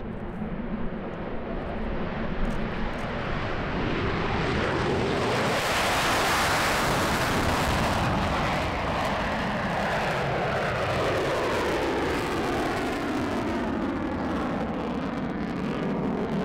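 Lockheed Martin F-22 Raptor taking off and climbing out in full afterburner, its twin Pratt & Whitney F119 turbofans giving a heavy jet roar. The roar builds over the first few seconds, is loudest about six to eight seconds in, then carries on with a falling, phasing sweep in pitch as the jet climbs away.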